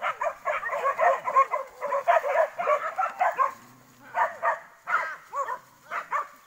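Several hunting dogs barking in quick, overlapping yaps as the pack runs through scrub on a boar hunt. After about three and a half seconds the barking thins to a few separate barks.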